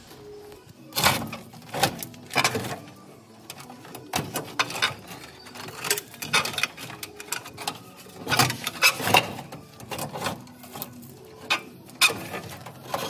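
Old truck wiring loom being cut and pulled out by hand: irregular sharp snips and clicks with scraping rustles of wires and plastic connectors dragging against each other.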